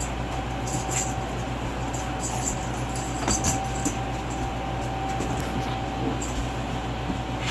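Steady room hum and hiss with a thin steady tone, broken by a few light clicks.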